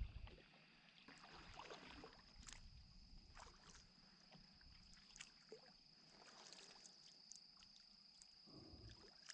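Very quiet: faint kayak paddle strokes with small drips and light knocks of water, over a faint steady high thin tone.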